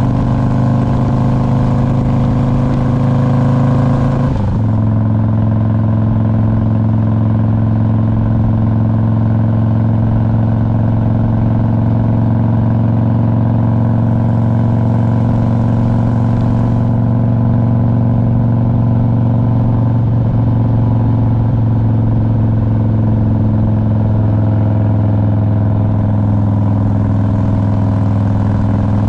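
2001 Harley-Davidson Road King's air-cooled Twin Cam 88 V-twin running steadily under way on the road. The note drops to a slightly lower pitch about four seconds in and then holds steady.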